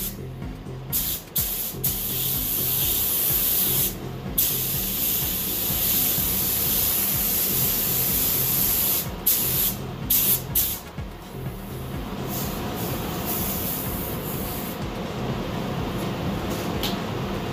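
Compressed-air paint spray gun hissing in stretches as the trigger is pulled and released, spraying paint through a mesh stencil to lay down a carbon-fibre pattern. The hiss stops about fifteen seconds in, leaving a low steady hum.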